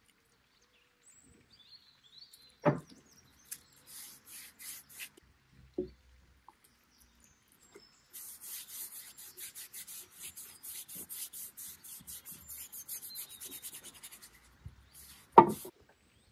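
Quick, even rubbing strokes on the bare wooden seat of an old chair as liquid wood hardener is worked into the very dry wood. A few sharp knocks on wood, the loudest about three seconds in and another just before the end.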